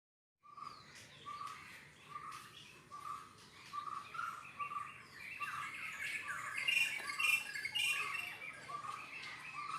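Birds calling: a short call repeated about twice a second, with a burst of higher chirping from other birds joining in the middle.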